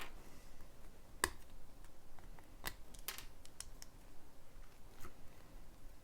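Lego plastic pieces being handled and fitted: a few scattered sharp plastic clicks and taps, the loudest about a second in.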